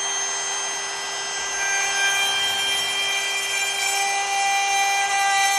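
Handheld router running steadily at full speed with a high whine, plunge-cutting a latch mortise into the wooden door edge.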